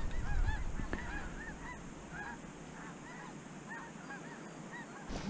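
A flock of Canada geese honking as they pass: many short honks overlapping, thinning out near the end.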